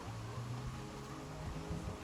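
Background music with long held notes, a low sustained tone under higher ones.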